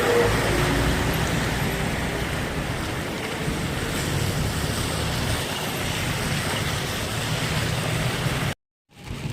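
Steady rushing noise of heavy rain and running water. It breaks off in a brief silence near the end, then resumes quieter.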